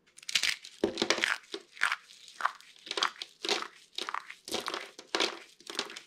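Dry soap curls crushed in the hands, a quick irregular series of crisp crunches, about two a second, as the thin shavings snap into crumbs.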